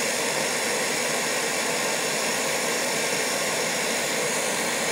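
Bentone single-stage oil burner firing: its blower fan and oil flame make a steady, even rushing noise with a faint hum, the sound of the burner running normally.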